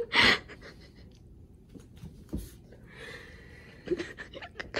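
A person's short, breathy gasp or laughing exhale right at the start, followed by a few small, quiet clicks and a faint hiss.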